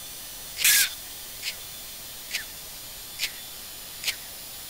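Short, sharp hissing breaths through an oxygen-mask microphone, about one a second, over a steady intercom hiss: the quick breathing of an anti-G straining maneuver during a sustained high-G pull.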